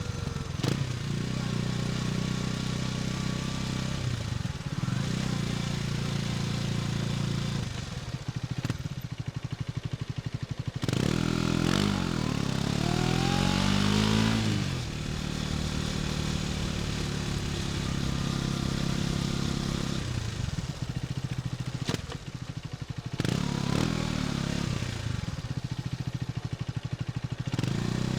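KTM 250 Duke's single-cylinder four-stroke engine under way on the road, mostly held at steady revs. About eleven seconds in, the revs rise sharply for a few seconds and then drop back, and near the end the pitch falls and climbs again.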